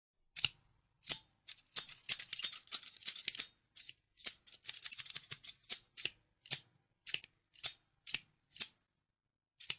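Scissors snipping: a few single cuts, then quick runs of rapid snips through the first half. After that come single snips about two a second, with a last one near the end.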